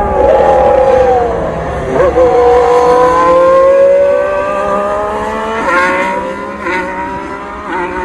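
Ferrari SF71H Formula 1 car's turbocharged 1.6-litre V6 hybrid engine. Its pitch falls as the car slows for a corner, then climbs as it accelerates away, dropping back at each of three quick upshifts in the second half.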